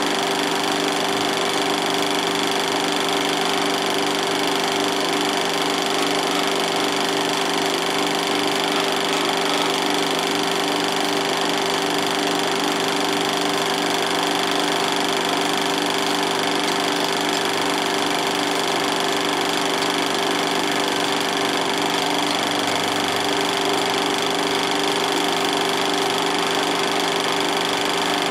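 16mm film projector running: a steady mechanical clatter of the film transport with a constant hum.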